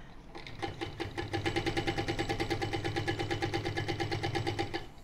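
ProSew 1933B industrial walking foot sewing machine stitching along a zipper seam: a motor hum under a rapid, even needle clatter of about nine stitches a second, picking up speed at the start and stopping abruptly near the end.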